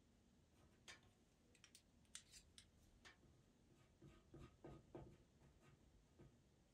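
Faint short scratches and taps of a pastel pencil making quick strokes on pastel mat paper, a cluster of them in the first few seconds, then a few duller taps about four to five seconds in.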